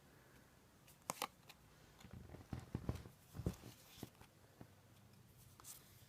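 Faint clicks and soft taps of Yu-Gi-Oh trading cards being handled and flipped through, mostly between about one and four seconds in.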